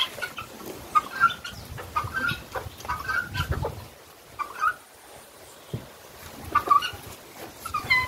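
Farmyard fowl calling: short, harsh calls repeated about once or twice a second in the first half, then fewer and further apart.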